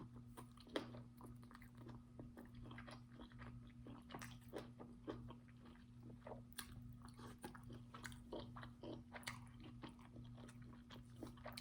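Faint close-up chewing and biting of food, with many small irregular crunches and wet mouth clicks, during a sausage, cucumber and rice mukbang.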